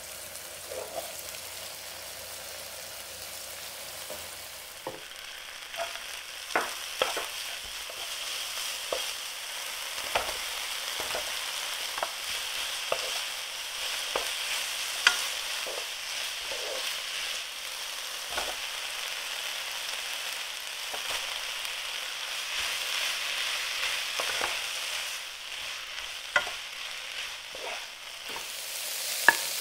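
Sliced onion and cabbage sizzling in oil in a frying pan, stirred with a wooden spatula that knocks and scrapes against the pan now and then.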